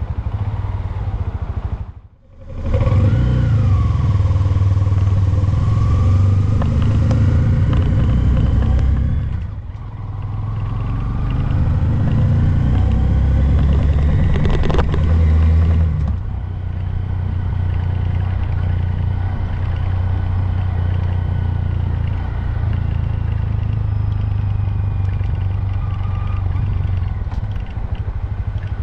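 2022 Honda Grom's single-cylinder 125 cc engine running on the move, its pitch rising and falling as it revs up and eases off. The sound drops out briefly about two seconds in. From about sixteen seconds on the engine settles into a steadier, somewhat quieter run.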